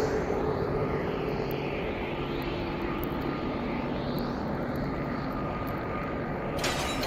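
Steady low drone of anime background sound, an even rumbling hum with a faint held tone, that changes near the end.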